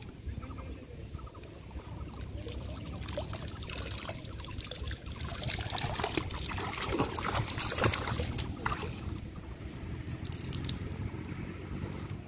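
Water splashing and trickling as a hollowed-out pumpkin trap is lifted out of shallow, weedy paddy water, with water pouring out through the holes cut in its rind. The splashing is loudest around the middle and eases off toward the end.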